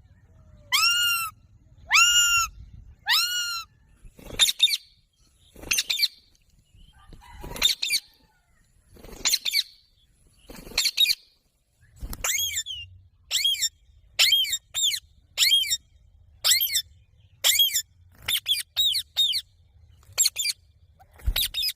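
Green parrot calling: a long series of short, harsh pitched calls, about one a second at first, then coming faster and closer together in the second half.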